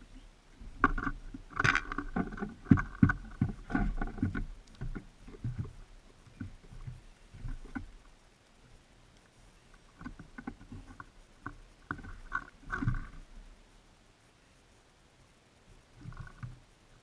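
Small birds landing, hopping and pecking on a seed feeder right beside the microphone: clusters of quick knocks, taps and scratches, busiest in the first few seconds and again around the middle.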